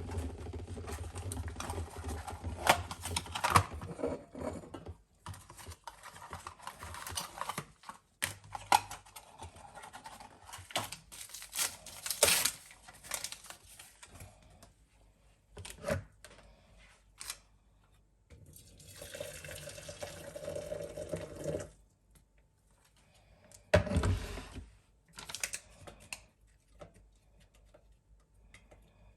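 Objects being handled: a series of sharp clicks, knocks and clatter, with a steady rush of running liquid for about two seconds past the middle and a dull thud a little later.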